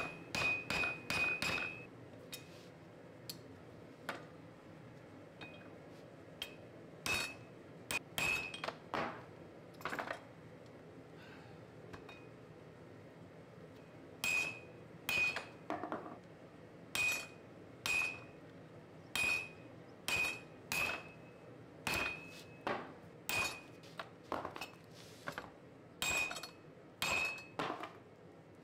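Hand hammer striking a glowing hot steel block on an anvil, each blow with a short high ring from the anvil. The blows come in quick runs with pauses between them while the block is forged out.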